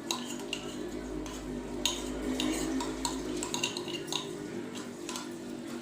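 A metal spoon clinking and scraping in a pan of simmering jaggery water as spices are stirred in: a string of short, irregular clinks over a steady low hum.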